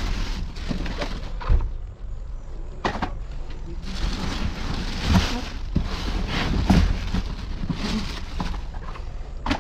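Cardboard boxes and plastic wrapping being pulled about and rummaged through by hand inside a metal dumpster: irregular rustling, crinkling and scraping, with a few sharp knocks.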